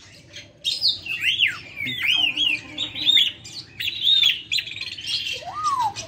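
African grey parrots calling: from about half a second in, a quick run of rising-and-falling whistles mixed with squawks, then a lower curved whistle near the end.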